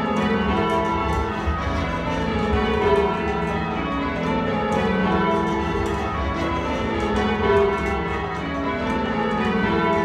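Church tower bells change ringing, heard from the ringing chamber below them: a continuous, evenly paced run of bell strikes, each bell's ringing tone overlapping the next.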